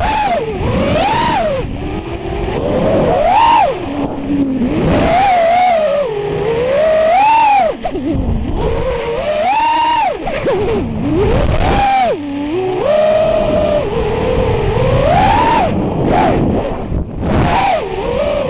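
FPV quadcopter's motors and propellers whining, the pitch swinging up and down every second or two as the throttle is worked, heard close from the drone itself.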